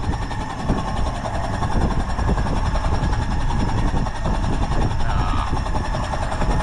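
A boat engine running steadily.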